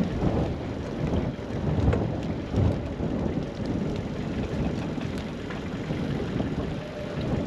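Strong wind buffeting the microphone: a loud, uneven low rumble with no clear tone.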